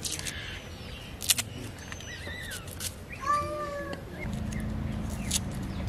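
Sharp clicks of a curved boti blade cutting garlic and shallots, with birds chirping. A cat meows once, short, a little after three seconds in, and a low steady hum starts about a second later.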